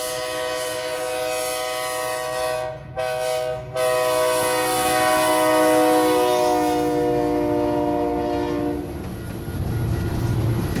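Passenger train sounding its multi-note chime at a crossing: a long blast, a short one, then a long blast that sags in pitch as the train passes. The chime stops near the end and a low rumble of the train rolling by takes over.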